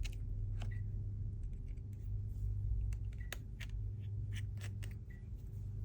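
Scattered small clicks and taps of hand tools working on the opened phone's parts, over a steady low hum.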